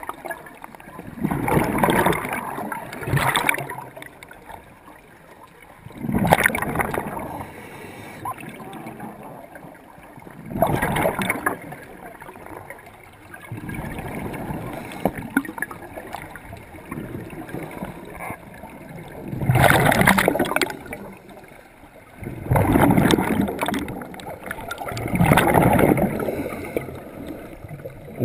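Scuba regulator underwater: a diver's exhaled breath bubbling out in bursts a second or two long, every few seconds, with quieter stretches between.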